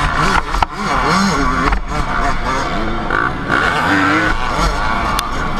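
Several dirt bike engines revving hard together, their pitches rising and falling as the riders work the throttle and shift, with wind rumbling on the microphone.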